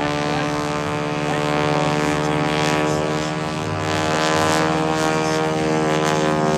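Boeing-Stearman PT-17 biplane's radial engine and propeller droning steadily in flight.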